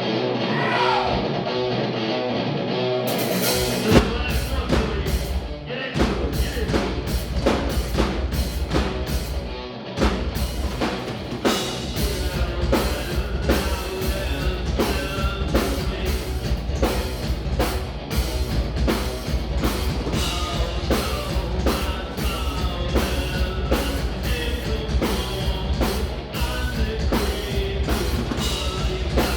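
A live progressive metal band playing: distorted electric guitar alone at first, then the drum kit and bass guitar come in about four seconds in and the full band plays on with a steady beat.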